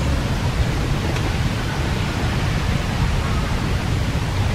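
Steady outdoor noise: an even hiss over a strong low rumble, with no distinct animal calls or knocks.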